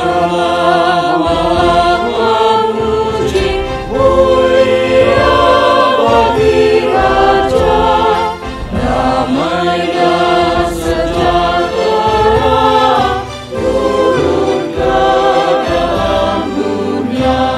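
Small mixed choir of men's and women's voices singing a song together in phrases of a few seconds, over a steady low instrumental accompaniment.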